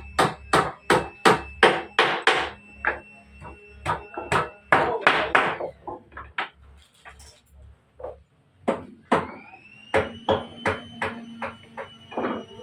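Repeated hammer blows in woodworking, about two to three strikes a second, with a short pause about two thirds of the way through.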